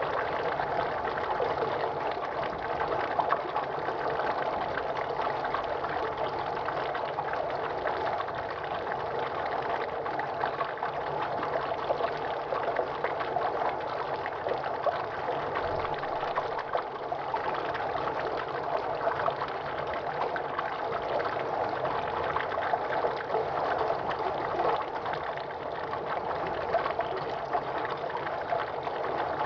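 Running water: a steady, even rush with no pauses.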